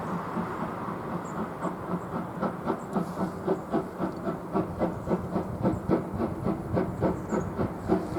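C11-class steam tank locomotive working, its exhaust chuffing in a quick, even rhythm over a steady hiss of steam.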